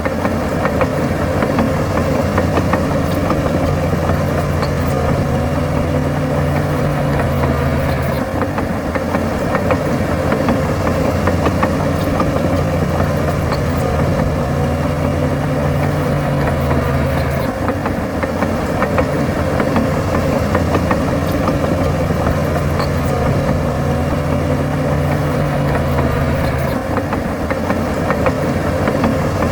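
Heavy diesel engine of earthmoving machinery running steadily. Its tone steps up and down several times.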